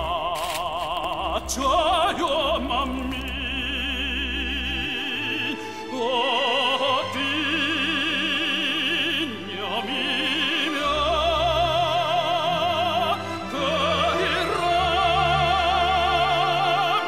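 Background music: a song sung in a classical, operatic style with strong vibrato over sustained low accompaniment, in long held phrases with short breaks between them.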